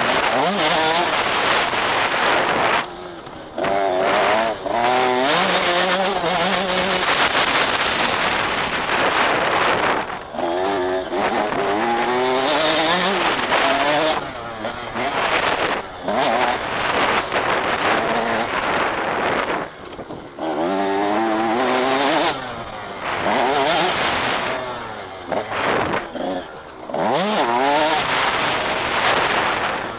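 KTM 85 SX two-stroke motocross bike engine revving hard. It drops off the throttle every few seconds and winds back up in rising glides, over a loud steady rushing hiss.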